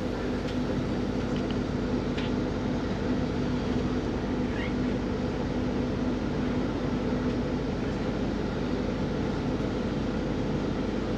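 Airport apron bus running, heard from inside the passenger cabin: a steady low hum of engine and air conditioning.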